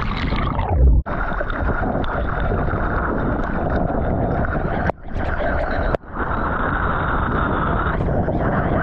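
Ocean water rushing and churning over a GoPro action camera's waterproof housing. A heavy, muffled underwater rumble builds just before the camera breaks the surface about a second in, then gives way to a steady rush of wash and spray, with two brief dropouts near the middle.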